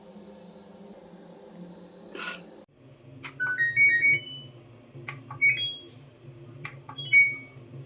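LG washing machine control panel beeping: a click, then a short run of electronic tones stepping up and down in pitch. This happens four times as the panel buttons are pressed. A brief rushing noise comes about two seconds in, and a low hum runs underneath.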